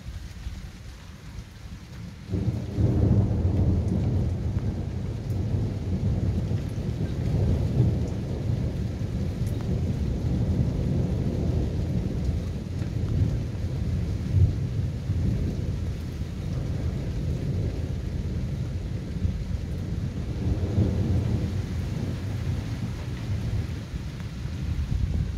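Thunder: a long, rolling rumble that starts suddenly about two seconds in, keeps going, and swells again near the end.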